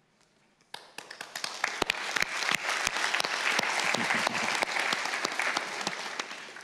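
Audience applauding: the clapping begins suddenly under a second in, holds steady, and thins out near the end.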